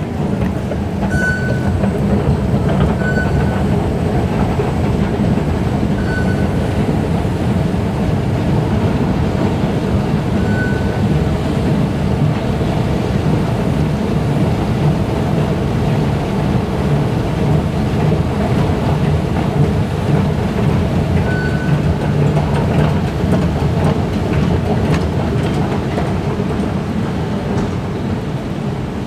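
Steady low rumble of an underground metro station, with several short high beeps at irregular intervals.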